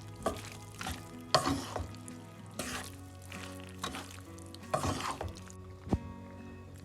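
A spoon stirring and scraping through creamy coconut-milk pasta in a hot pan, in about ten uneven strokes, over faint background music.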